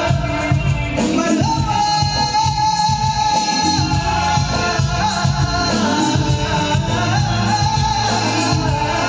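Male singer singing live into a microphone over a PA system, backed by keyboard and a steady beat, holding long sung notes.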